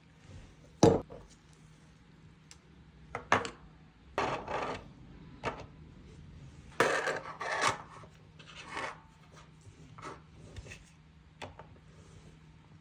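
Rigid plastic parts of a 3D-printed lamp being handled: irregular scraping, rubbing and small knocks, with the loudest bursts about one, three and seven seconds in.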